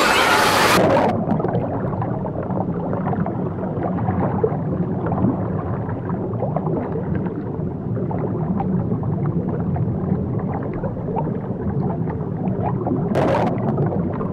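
Muffled underwater sound of the sea: a dense low churning rumble with scattered small crackles, as legs kick beneath the surface. About a second in, the open-air sound of sloshing water and bathers' voices cuts off. It breaks in again for a moment near the end.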